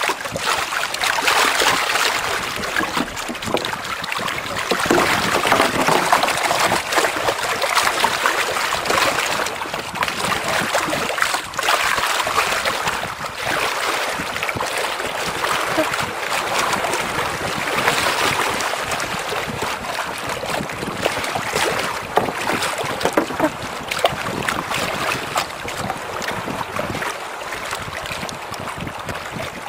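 Wind buffeting the microphone over choppy lake water splashing and lapping around a small boat, a steady rushing noise that rises and falls.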